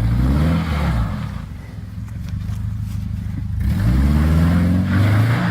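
Subaru Crosstrek's flat-four engine revving hard. It revs up right at the start, eases off, then climbs again a little under four seconds in and holds high, as the car's all-season tires spin for traction on the off-road climb.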